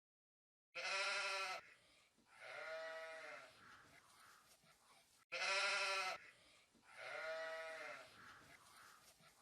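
An animal bleating: a short, loud, quavering bleat followed by a lower, longer one, the same pair heard twice.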